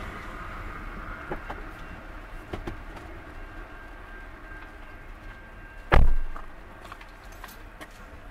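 Fading rumble of a container freight train that has just passed and is moving away, with a faint steady high tone and a few light clicks from the departing wagons. About six seconds in, a single sharp thump.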